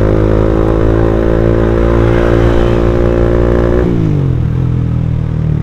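Suzuki Satria F150 fuel-injected motorcycle's single-cylinder four-stroke engine with an aftermarket racing exhaust, running steadily under throttle while riding. About four seconds in, the pitch drops as the throttle is rolled off.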